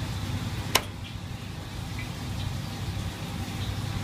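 Steady low background hum, with a single sharp click a little under a second in.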